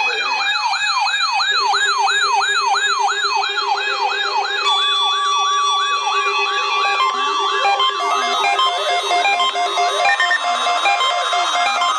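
Several NOAA weather radio receivers sounding their alert alarms together for the weekly test. A fast warbling siren overlaps steady alarm tones, more steady tones join about five seconds in, and a slower rising-and-falling siren starts near the middle.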